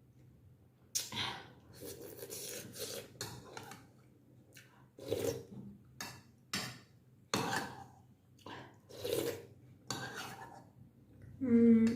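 Eating a bowl of noodle soup close to the microphone: cutlery clinking and scraping against the bowl amid irregular eating sounds, with a short hummed voice sound near the end.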